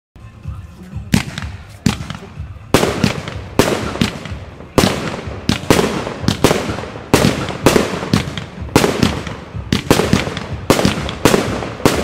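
Tropic TB14 Blue Bird fireworks battery (an F3 cake) firing. About a second in, a rapid run of sharp bangs begins, roughly one to two a second, each with a short ringing tail, as the shots launch and burst.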